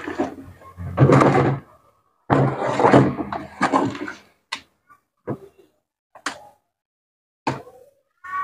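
Rice cooker housing being handled and turned over on a work table: two long stretches of scraping and rubbing, then several short separate clicks and knocks.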